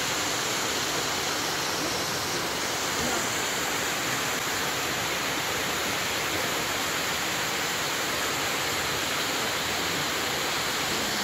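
Mountain waterfall: falling water rushing steadily at close range, an even, unbroken hiss.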